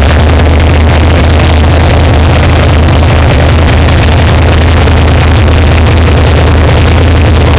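Big-block V8 running steadily at idle on its first start, loud enough to overload the recording.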